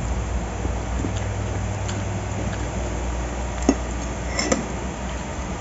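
Spoon clinking against a plate a few times during eating, with a steady low hum underneath.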